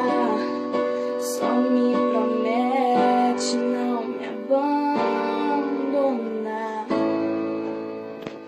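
Music: the closing bars of a pop song, keyboard chords with a wordless female voice, fading out near the end.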